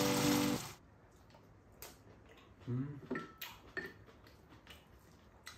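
Waltz music over a sizzling pan cuts off under a second in. Then come scattered light clinks and scrapes of spoons against bowls as two people eat, with a short low murmur from one of them about three seconds in.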